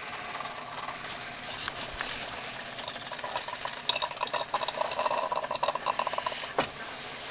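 Miniature steam engine running on steam from its propane-fired boiler, with a rapid, even mechanical beat from the cylinder and flywheel that grows louder from about four seconds in. One sharp click near the end.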